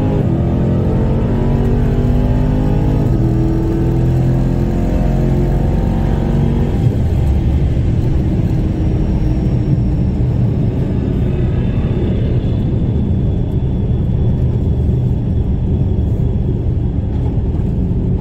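Drag-racing cars at full throttle down the strip: engine pitch climbs in steps as the gears change for about the first seven seconds, then gives way to a steady rumble of engine and wind noise at speed.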